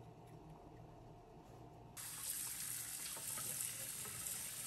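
Kitchen tap running, its stream pouring onto cooked noodles in a metal mesh strainer in a stainless steel sink; the steady rush of water starts suddenly about two seconds in. Before that, near quiet with a faint hum.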